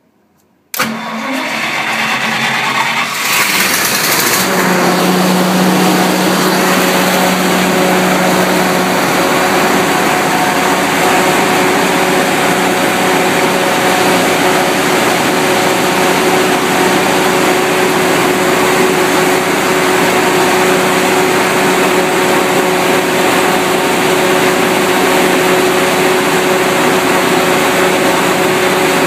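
Onan 70 kW standby generator with an LP-fuelled International Harvester V549 V8 engine starting from the panel switch: a sudden start about a second in, the engine catching within a few seconds, then running at a steady, even speed.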